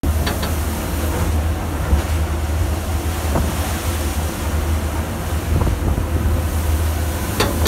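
Strong wind buffeting the microphone and rough sea surging and breaking around a fishing vessel in a storm, with a steady low rumble underneath.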